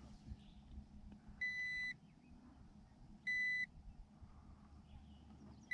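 Digital fish scale beeping: three identical short, high electronic beeps, about two seconds apart.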